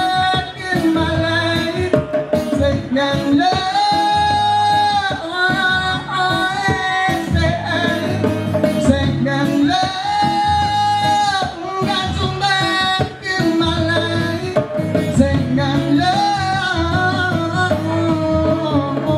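Live reggae song: a man singing over strummed acoustic guitar and a djembe hand drum, with long held notes twice.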